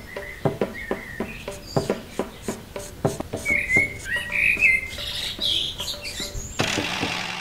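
Birds chirping over a run of light clicks and taps. A steady hiss comes in near the end.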